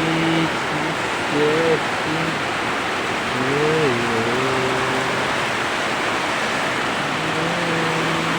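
Heavy typhoon rain pouring down in a steady, loud hiss. A low voice-like sound with a wavering pitch rises over it a few times, most clearly a few seconds in.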